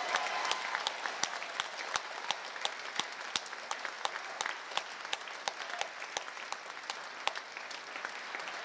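Audience applauding, with single sharp claps standing out close by; the applause slowly thins out.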